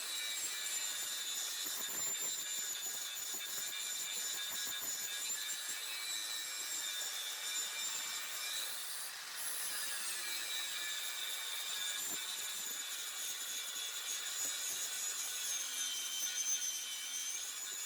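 Plasma cutter cutting steel: a steady hiss with a high whistle that wavers in pitch, with a short dip about nine seconds in.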